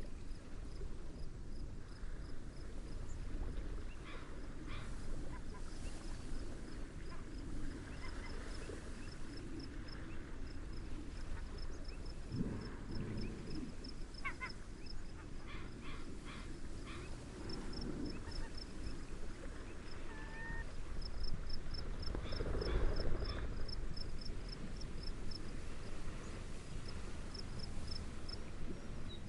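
Seaside nature ambience: a steady wash of wind and gentle waves, swelling briefly a little past the middle, under a cricket chirping in quick, regular high pulses with short pauses. Scattered short bird calls come through in the middle.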